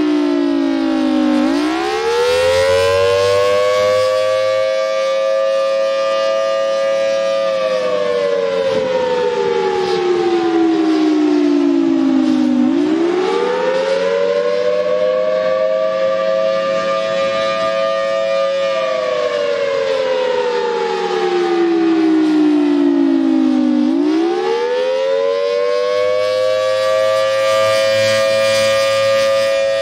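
Federal Signal Thunderbolt 1000T outdoor warning siren, loud and close, sounding the attack signal: a wailing tone that rises over a few seconds, holds high, then slides back down, repeating about every eleven seconds.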